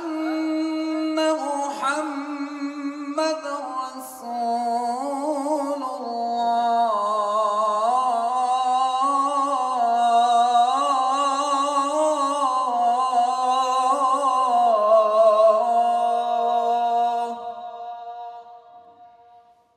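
A man singing the adhan (Islamic call to prayer) into a handheld microphone, in long melismatic phrases with wavering ornaments. There is a short break about four seconds in, then one long held phrase that fades out near the end.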